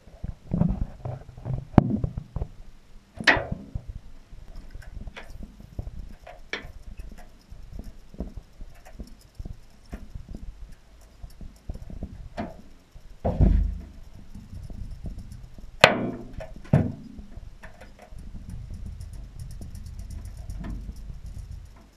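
Black-and-blue rattle jigs being jiggled and swung on the line: irregular rattle clicks and small knocks, with a few louder knocks and a low handling rumble.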